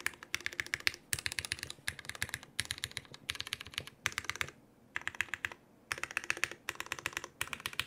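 Hand Engineering HAUS custom mechanical keyboard being typed on in quick runs of keystrokes broken by short pauses. It has broken-in Cherry MX Black linear switches with 62 g springs, lubed with 205g0, on an aluminium plate, with lubed Cherry clip-in stabilisers and GMK keycaps.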